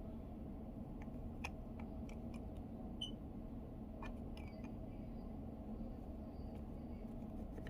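Scattered small clicks and taps of the commander control's plastic parts being handled during disassembly, a few isolated clicks over a steady low hum.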